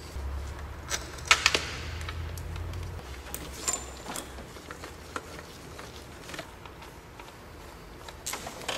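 Scattered light metallic clicks and taps of a throttle body and its small bolts being handled and fitted onto an engine's intake, with a sharper cluster of clicks near the end.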